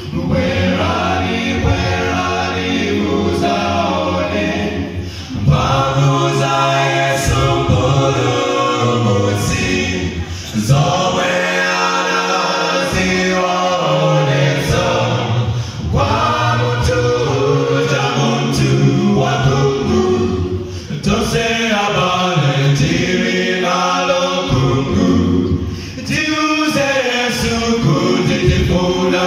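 Male a cappella group of seven voices singing in harmony through microphones, with a low bass part under the upper voices. The phrases break about every five seconds.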